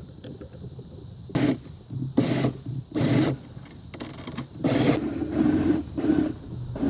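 Tool at work on the wooden hive box: about six short rasping mechanical strokes with a ratchet-like clicking, each lasting a few tenths of a second, with short pauses between them.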